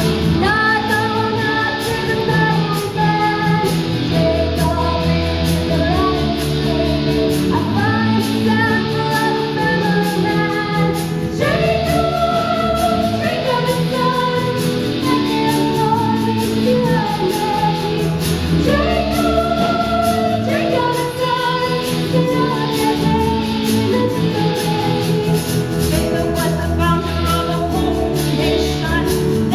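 Female voices singing a musical-theatre number over instrumental accompaniment, a sung melody line above steady low backing notes.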